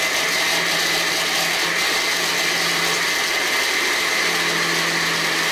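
Countertop blender running steadily, puréeing papaya pulp into juice: an even motor hum with a whine over it.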